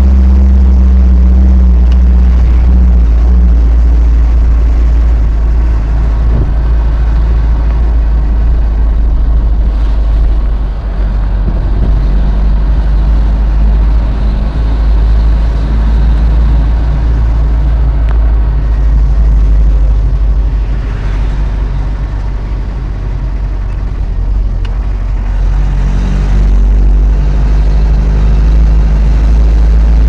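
Engine and road rumble of a large vehicle, heard from inside its cab while driving: a heavy, steady low rumble with the engine note shifting in pitch. It eases off around the middle and again a few seconds later, then picks up near the end.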